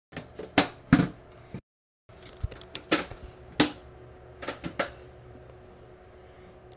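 Clicks and knocks of computer hardware being handled, about a dozen sharp ones over the first five seconds, fewer after. The sound cuts out completely twice in the first two seconds, then a faint steady hum runs underneath.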